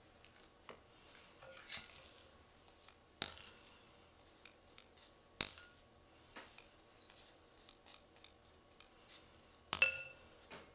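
Small metal spatula clinking and scraping against a glass mixing bowl while dumpling filling is scooped out onto a wrapper. Three sharp clinks stand out, the last a double one near the end as the spatula is laid back in the bowl, with light ticks and taps between.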